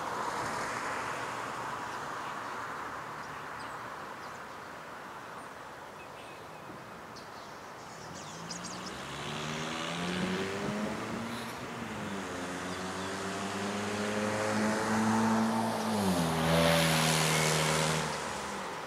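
An engine running, rising in pitch, holding steady, then stepping down lower near the end, with a louder rush of noise over the last couple of seconds.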